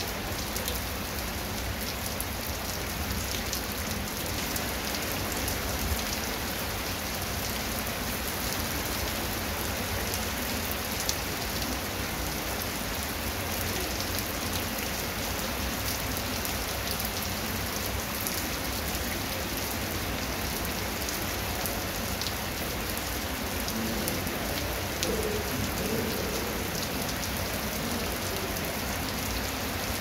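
Steady heavy rain falling on a wet concrete path and grass: an even hiss with scattered drop ticks.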